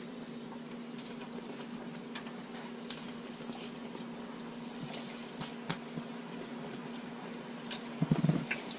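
Hot oil in an electric deep fryer sizzling and bubbling, with scattered small pops, as breaded whiting fillets are lowered in to fry. A faint steady low hum runs underneath, and a short louder low sound comes near the end.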